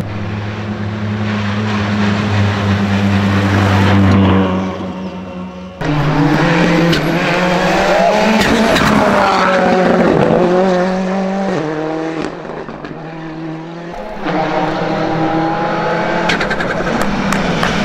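Ford Fiesta R5+ rally car's turbocharged four-cylinder engine revving hard and climbing through the gears, its pitch rising and dropping at each shift. The sound changes abruptly twice, where one pass cuts to the next.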